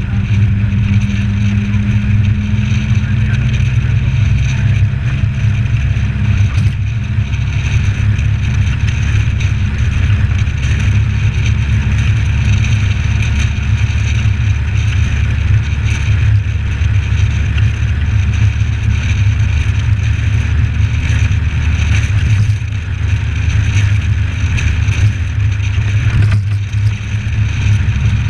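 Suzuki Samurai 4x4 driving at road speed: steady engine and road noise, heavy in the low end, with brief dips in loudness twice near the end. It is heard muffled through the GoPro's sealed housing, which spoils the sound.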